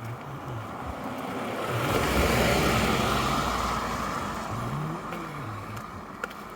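A car passing by, its engine and tyre noise swelling to a peak about two seconds in and then fading away.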